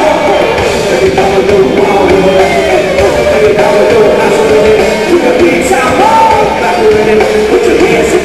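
Live rock band playing loudly, with drums, electric guitars and keyboards under a singing voice, with no break in the music.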